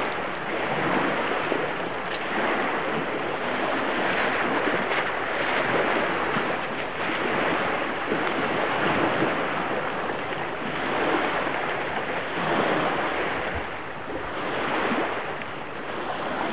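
Lake waves washing in, an even rushing noise that swells and eases every couple of seconds.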